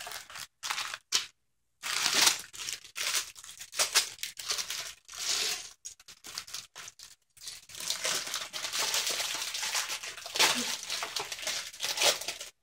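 Plastic Lego parts bags crinkling and rustling as they are handled, in irregular bursts at first and more continuous over the second half as a bag is worked open.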